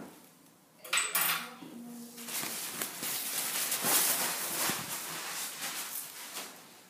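Metal instruments and equipment being handled and cleared away: a sharp clink about a second in, then several seconds of clattering and rustling that fades near the end.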